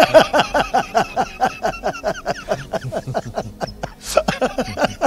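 Two men laughing heartily into handheld microphones: a fast run of ha-ha pulses that breaks off briefly near the end, then starts again.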